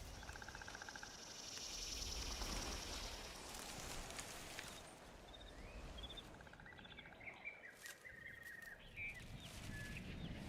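Quiet outdoor ambience with faint bird chirps and trills, the chirps coming thick and fast in the second half.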